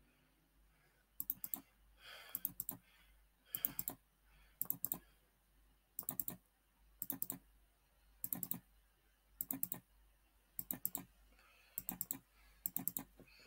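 Computer mouse clicks in quick groups of two to four, repeating about once a second: each group picks a line and sets the side for another offset.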